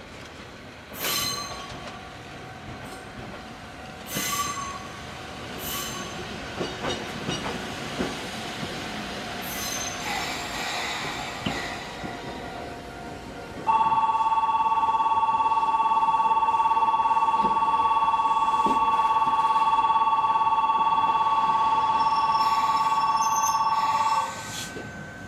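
Omi Railway 820-series electric train running into the platform, its wheels clacking over rail joints over a steady whine. About 14 seconds in, a loud steady two-tone ringing starts suddenly, holds for about ten seconds and cuts off abruptly.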